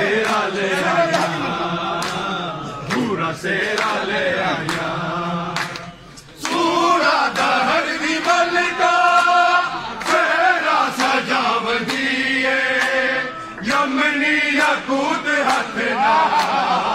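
A crowd of men chanting a Punjabi devotional song in praise of Ali (a manqabat) together, in several voices at once. Sharp clicks are scattered throughout, and there is a short break about six seconds in.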